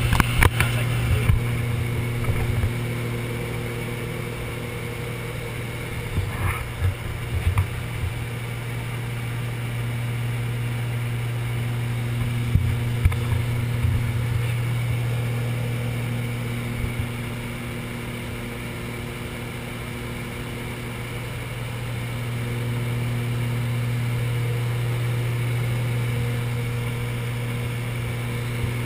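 Twin-engine light aircraft's engines and propellers droning steadily, heard inside the cabin during the climb, with a hum that swells and fades in a slow cycle. A few low bumps come and go.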